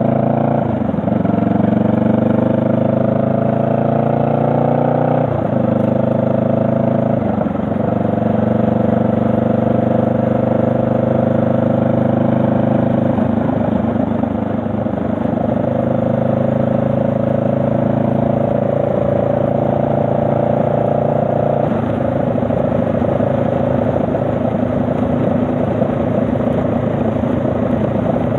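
Honda Rebel 500's parallel-twin engine pulling through the gears: the pitch climbs and drops sharply at upshifts about a second in and again around five and seven seconds in. It then settles into a steady cruise that rises slowly.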